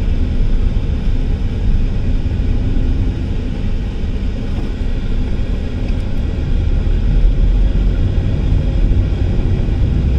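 Engine and tyre noise of a moving car heard from inside the cabin: a steady low rumble that holds even throughout.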